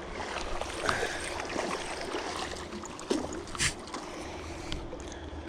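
River water running and lapping, with a few short splashes or knocks, the sharpest about three and a half seconds in.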